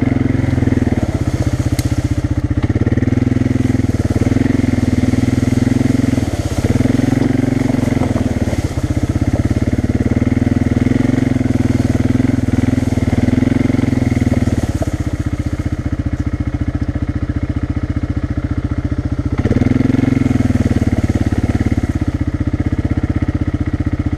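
ATV engine running at low speed on a slow trail crawl, the revs rising and easing in spells as the throttle is worked, with a longer easing-off in the second half.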